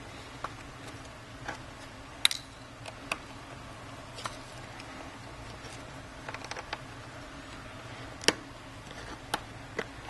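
Light, irregular clicks and taps of a Samsung Galaxy S3's plastic casing and parts being handled by fingers, the sharpest about two seconds in and again near eight seconds, over a low steady hum.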